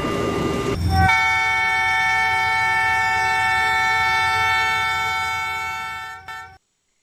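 A train horn sounding one long, steady multi-note chord for about five seconds over the rumble of a running train, fading and then cutting off suddenly near the end.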